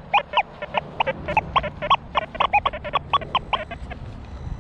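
XP Deus 2 metal detector chattering, a rapid irregular run of short chirping tones as the coil sweeps ground thick with buried iron. The tones break off near the end, and a brief low rumble follows.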